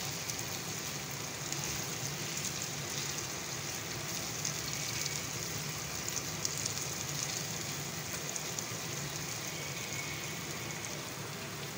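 Sliced taro root (arvi) sizzling steadily as it shallow-fries in a little oil in a wok, with light scrapes of a wooden spatula turning the slices.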